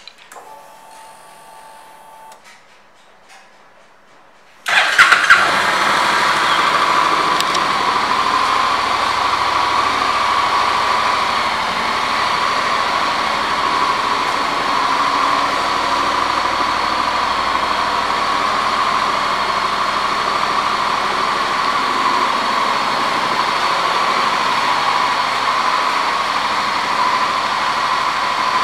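2016 Honda NM4's 745 cc parallel-twin engine starting about five seconds in, then idling steadily.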